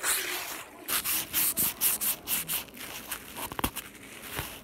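Phone being wiped with cloth, the fabric rubbing right over its microphone in quick scratchy strokes, about four a second, easing off near the end.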